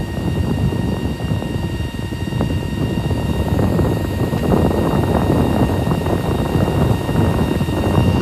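Wind buffeting the phone's microphone in a loud, uneven rumble that cuts off abruptly near the end.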